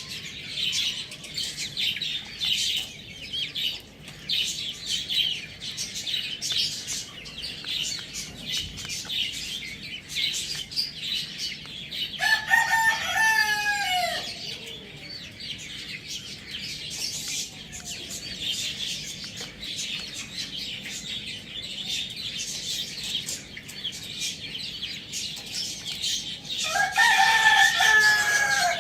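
A rooster crows twice, each crow lasting about two seconds and falling in pitch at the end, the second near the end. Between the crows there is a constant high twittering chatter of small birds.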